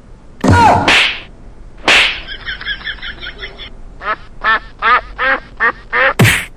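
Duck quacking: a quick run of short quacks, then a slower string of about seven separate quacks, broken by a few loud noisy bursts.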